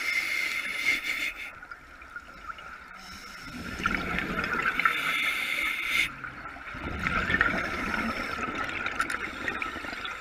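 Scuba regulator exhaust heard underwater: a diver breathing out in two long bubbling exhalations, the first starting about three and a half seconds in and the second about a second after it ends.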